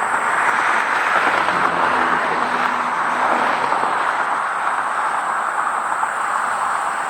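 Road traffic: a vehicle passing on the highway, its tyre and engine noise swelling and easing off.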